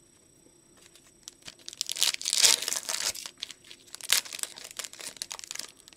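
Foil trading-card pack wrapper crinkling as it is torn open and the cards are pulled out. It starts after about a second of quiet, is loudest two to three seconds in, and gives another sharp crackle near four seconds.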